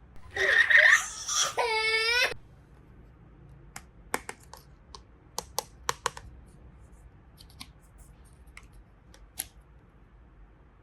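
A brief high-pitched crying sound for about two seconds, then a series of light, sharp clicks of small plastic toy pieces being handled.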